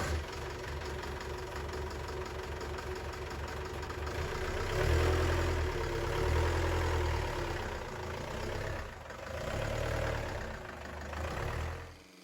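A vehicle engine runs with a fast, even firing pulse and swells louder three times, about five, six and a half and ten seconds in. It cuts off abruptly near the end.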